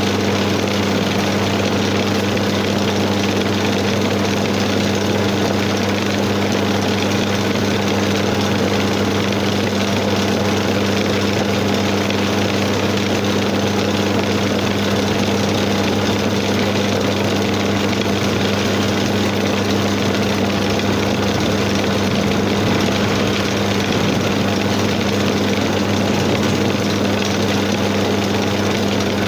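Homemade electric wood lathe running steadily with a constant hum, while a hand chisel cuts a turning wooden spindle.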